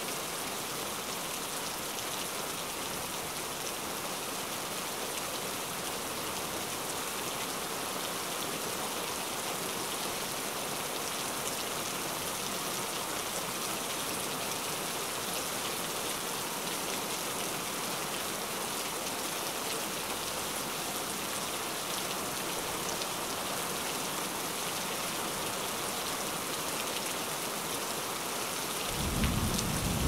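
Heavy rain falling as a steady, even hiss. Near the end a loud low rumble sets in.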